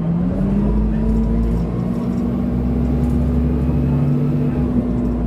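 Dennis Dart bus's rear-mounted diesel engine heard from inside the saloon. Its note rises shortly after the start and then holds steady as the bus runs along, over a low rumble and the constant hoovering of the engine cooling fan.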